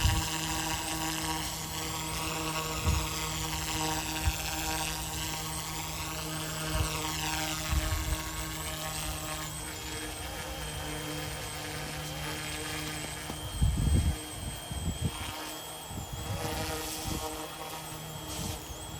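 Yu Xiang UH-1 Huey remote-control helicopter in flight: its small electric motor and rotors make a steady buzzing whine that wavers up and down in pitch. A few low thumps come about two-thirds of the way in.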